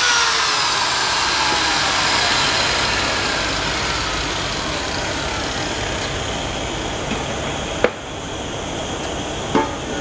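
Electric angle grinder switched off after deburring weld spots on a sheet-metal threshing-machine cover, its whine falling in pitch as it winds down over about four seconds. A steady noise runs underneath, and two sharp knocks come near the end.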